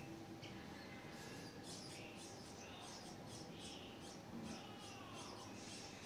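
Nestling birds begging with rapid, thin, high-pitched squeaks, several a second, starting about a second and a half in.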